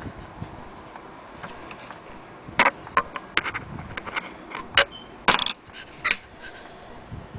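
A handful of sharp, irregular clicks and knocks, the first about two and a half seconds in, from a hand handling an antique Willcox & Gibbs sewing machine.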